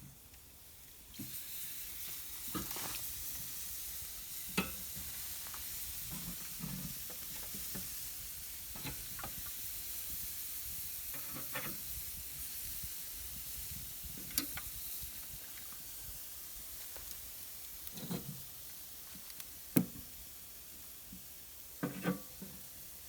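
Meat sizzling on a smoker rack over very hot coals: a steady high hiss that starts about a second in, with a few sharp clicks and knocks scattered through.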